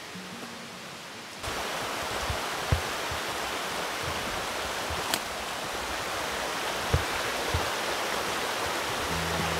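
River water running: a steady rush that cuts in abruptly about a second and a half in, with a few light knocks over it.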